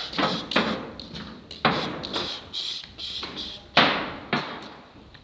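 A string of heavy, irregular thumps and knocks, five loud ones among smaller taps, as someone climbs down onto a metro track bed with the phone held close.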